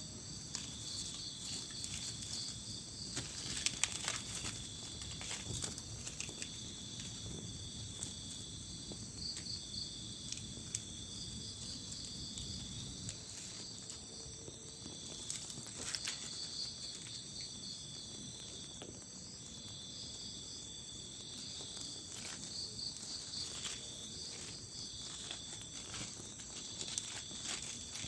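Night chorus of crickets and other insects: a steady high trilling with a pulsing beat. Scattered short clicks and crackles run through it, over a low rustle that fades out about halfway.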